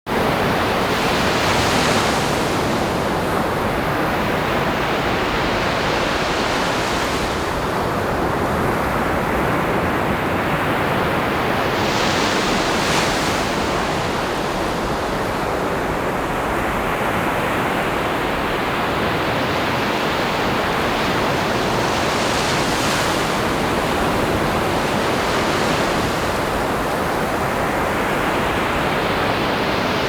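Ocean waves breaking and washing in a steady rush of surf, with brighter hissing swells as waves break about every five to ten seconds.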